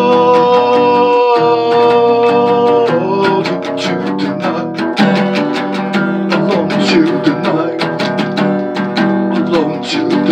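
Instrumental break in a song: a held note at first, then guitar strumming in a steady rhythm from about three seconds in.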